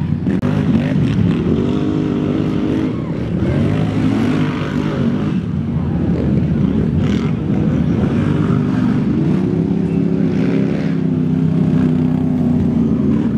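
Racing ATV engines revving as quads ride past on the dirt course, the pitch rising and falling again and again with the throttle.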